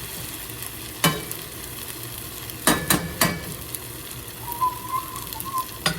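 Fried rice sizzling in a hot pan while it is stirred, with a metal utensil knocking sharply against the pan four times in the first half. A faint wavering tone is heard near the end.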